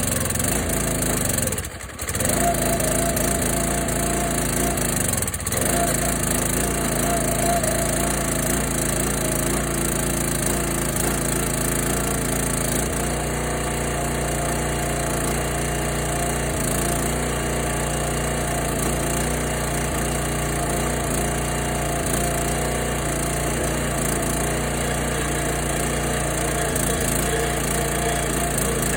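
Log splitter's Kohler 6.5 hp single-cylinder engine running steadily, its pitch dipping briefly twice near the start as the engine bogs under load and recovers.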